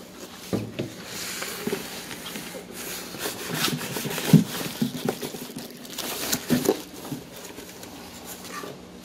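Cardboard box and packing paper being handled and rummaged through: irregular rustling and scraping with scattered knocks, the loudest knock a little over four seconds in.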